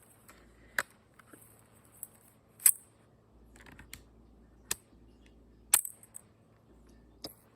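Half a dozen sharp plastic clicks and snaps at uneven intervals, typical of a 3D-printed pistol's mechanism being worked by hand, cocked and dry-fired.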